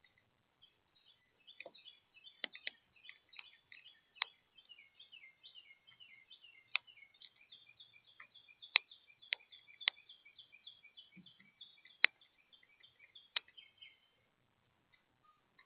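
Small wild birds at a feeder chirping in quick runs of short, high notes, with about ten sharp clicks scattered through. The chirping stops near the end.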